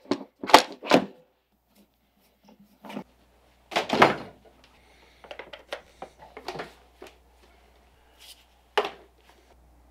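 Two sharp plastic clicks as the DeWalt DW735 planer's lid is pressed down onto its housing, followed by scattered knocks and thumps of handling, the loudest about four seconds in.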